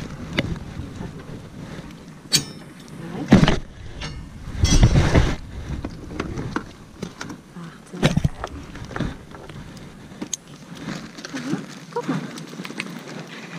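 Irregular knocks, clicks and rattles from handling a metal dog crate in a car's boot and getting a dog out on a lead, with bursts of rustling handling noise on the microphone.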